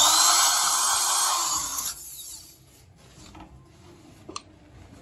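Battery pipe press tool crimping a press fitting onto multilayer pipe: its motor runs, then stops about two seconds in. After that come faint handling noises and a sharp click near the end.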